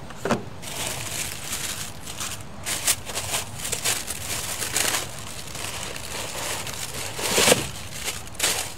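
Brown wrapping paper rustling and crinkling as it is pulled back in a cardboard shoebox, in a run of uneven bursts, with the loudest rustle about seven seconds in as a shoe is lifted out of the paper.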